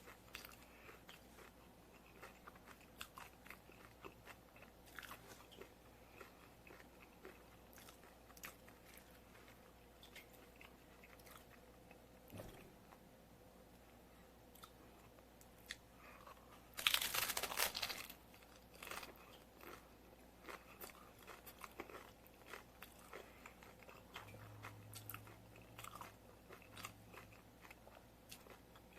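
Close-miked eating sounds of crunchy taco shells being chewed: a run of small crackles and clicks, with one loud crunch lasting about a second past the middle, typical of a bite into a hard shell.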